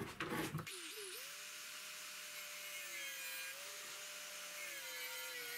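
Angle grinder switched on, its whine rising about a second in, then running steadily with no load before it touches the steel.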